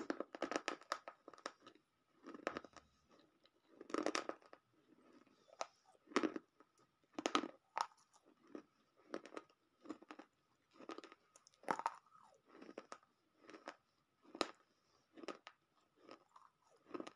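Crunching and chewing of roasted multani mitti (fuller's earth clay) pieces: sharp, irregular crunches about once a second, with a dense burst of them at the start.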